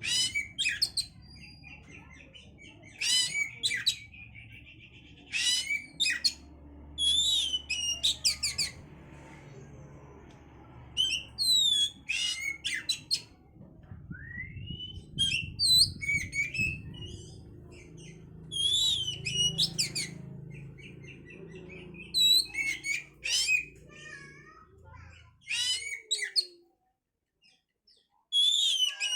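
Oriental magpie-robin (kacer) singing in loud, rapid bursts of varied high whistled phrases, a second or two apart: a lure song used to stir another kacer into breeding condition. A low steady hum lies underneath and stops near the end.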